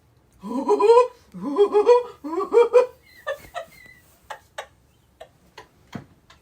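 A person's voice making three drawn-out vocal sounds in quick succession, each rising in pitch, followed by a string of short clicks over the last few seconds.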